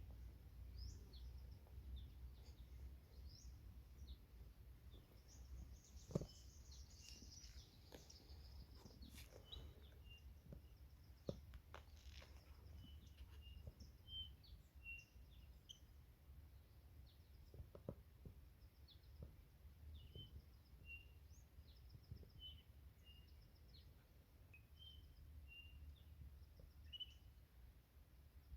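Faint forest birdsong: scattered high chirps, and in the second half one bird repeating a short note over and over, about once a second. Under it a steady low rumble, with a few soft sharp clicks.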